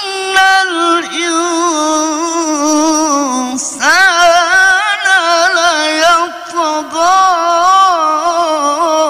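A male qari reciting the Quran in the melodic mujawwad style, drawing out one long ornamented phrase in a high register with a wavering pitch. About three and a half seconds in he takes a brief break, then swoops up into the next phrase.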